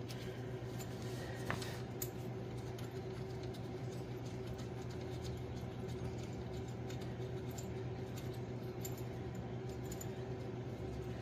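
Faint small metallic clicks and scrapes of nuts being threaded by hand onto a connecting rod cap, with one sharper click about a second and a half in, over a steady low hum.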